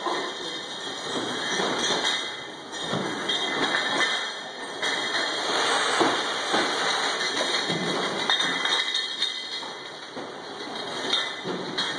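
Linear automatic adhesive bottle labeling machine running, its conveyor carrying glass bottles through with a continuous mechanical clatter and frequent short knocks.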